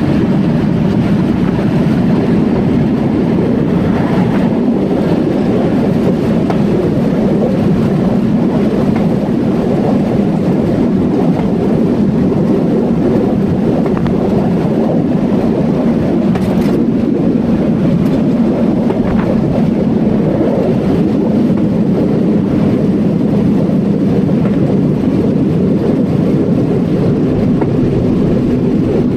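Steady rumble and hum of a Stern & Hafferl Atterseebahn metre-gauge electric train, heard from on board. There is a single sharp click about seventeen seconds in.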